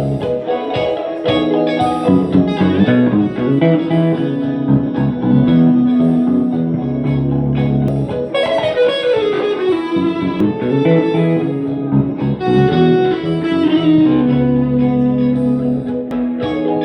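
Electric guitar played solo, mixing long held chords with picked single notes; a little past the middle a line of notes slides downward in pitch before the chords return.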